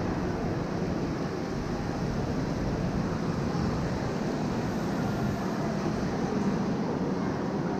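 Steady low rumble of a vehicle under way, even throughout with no sharp events.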